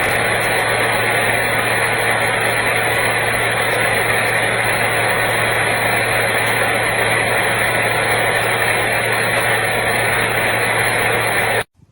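Battery-powered mini chainsaw's brushless motor and chain running steadily at full speed, with a constant low hum under a broad whirr. It starts and stops suddenly.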